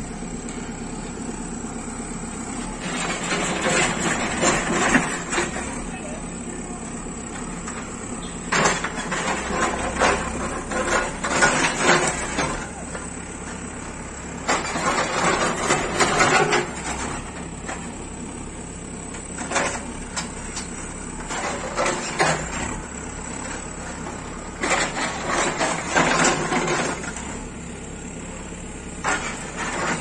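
JCB 3CX backhoe loader's diesel engine running steadily while its rear bucket rips into mud walls. Dirt and broken mud-brick crash and slide down in several bursts of a few seconds each.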